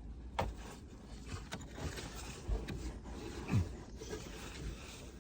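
Scraping and rubbing of someone handling materials and shifting about in a cramped crawl space, with several light knocks and a dull thump about three and a half seconds in.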